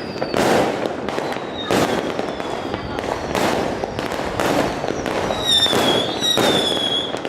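Aerial fireworks display going off, with a rapid run of bangs and crackles. High whistles, slowly falling in pitch, sound over the bangs, clearest in the second half.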